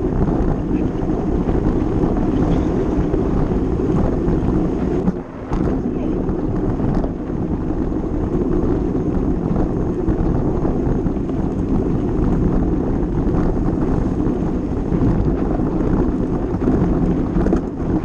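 Wind buffeting an action camera's microphone on a mountain bike rolling fast downhill, mixed with the rumble of the wide tyres on a dirt forest trail. The rush dips briefly about five seconds in.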